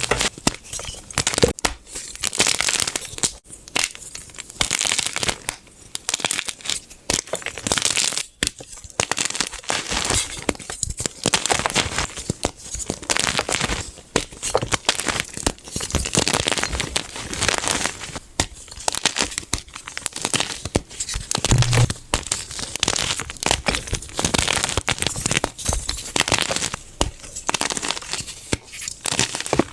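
Gym chalk being crushed: a dense, irregular run of dry crunches and crackles.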